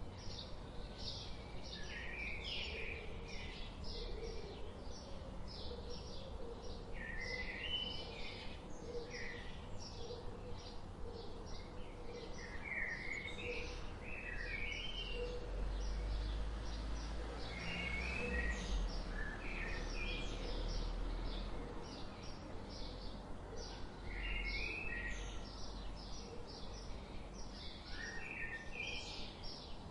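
Songbirds chirping: a steady run of short, high chirps repeated a few times a second, with short warbled song phrases breaking in every few seconds. A low rumble swells in the middle and fades again.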